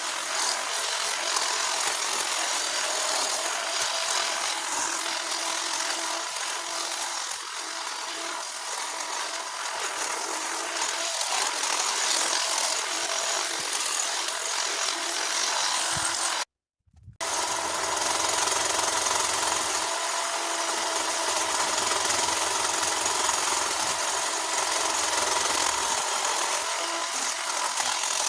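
Handheld power cutting tool running steadily with a motor whine as it cuts through bush branches. It breaks off for a moment a little past the middle, then runs on.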